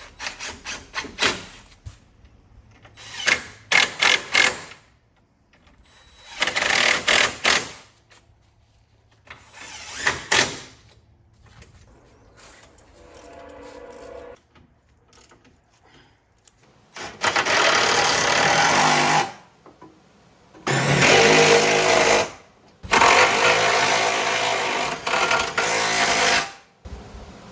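Power driver running screws into a car's fender well liner in bursts: short ones at first, then three longer runs of two to three seconds each in the second half.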